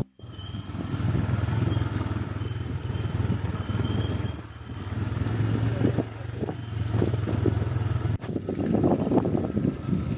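Motorcycle engine running while riding, its level rising and falling. The sound drops out for an instant at the very start and again about eight seconds in.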